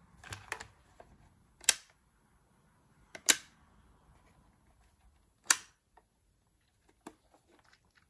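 Sharp clicks from handling a vintage desktop electronic calculator and its docking base: three loud ones about a second and a half to two seconds apart, with a few fainter ticks between them.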